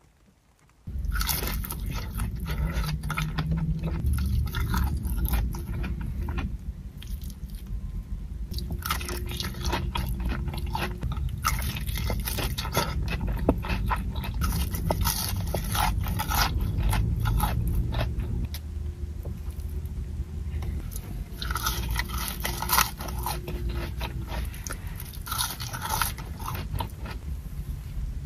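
Close-miked bites and chewing of crispy fried chicken fingers: many sharp crunches, starting about a second in, over a steady low rumble.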